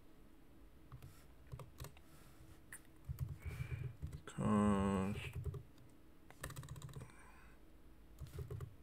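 Typing on a computer keyboard: irregular clusters of key clicks as a line of code is entered, with a short vocal sound about halfway through.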